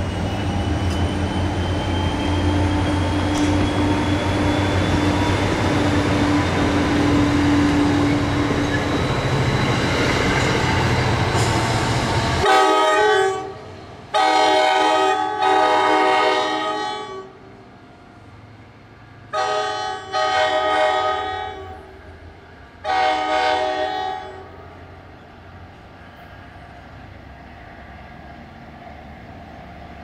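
A Metro-North commuter train rolls past at speed, a loud steady rumble. Then the horn on the trailing Comet V cab car sounds about six blasts in three groups, some short and some longer, as the train pulls away.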